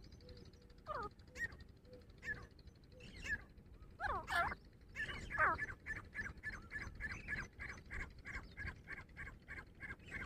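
Grey francolin calling: a few scattered notes, then a loud harsh call about four seconds in, followed by a fast, even run of repeated notes, about three a second.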